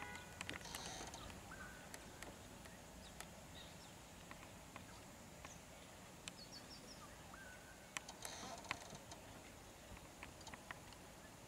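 Faint outdoor ambience with a few short bird chirps and scattered light clicks and knocks, the loudest of them a little after the middle.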